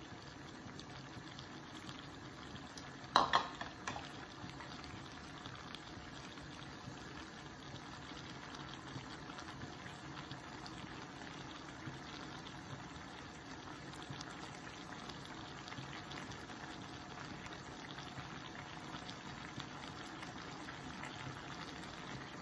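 Lagman stew of meat and vegetables in blended tomato simmering in a pot, a faint steady bubbling with light crackle. About three seconds in, one brief sharp knock.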